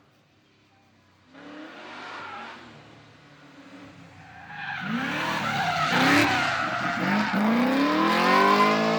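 Drift car's engine revving hard with tyre squeal from sliding tyres. It starts faint and becomes loud about five seconds in, its pitch swinging up and down, then climbing steadily near the end.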